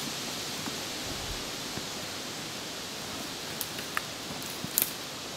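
A steady outdoor hiss, with a few short sharp clicks and scrapes from spades digging into soil under a felled trunk between about three and a half and five seconds in.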